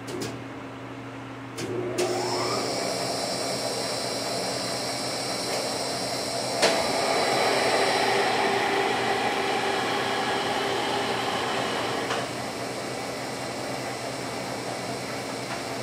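An electric machine-shop motor spins up with a rising whine about two seconds in, then runs steadily. A sharp click comes partway through, and the sound grows louder for several seconds before easing back.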